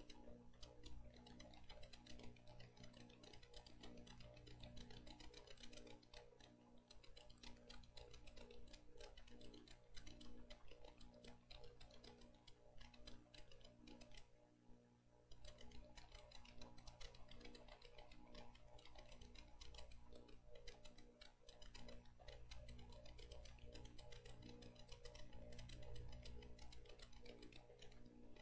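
Very faint music with repeated notes, heard under many light clicks and a steady low hum.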